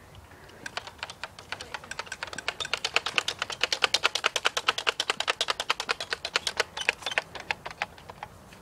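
A rapid, even series of sharp clicks, about eight a second, starting about a second in, loudest in the middle and thinning out near the end.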